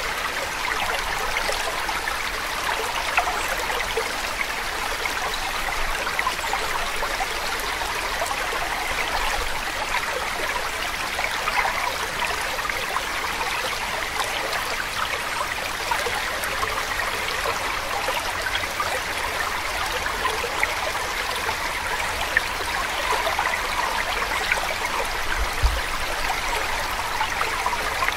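Steady running water like a stream, an even rushing flow that does not change.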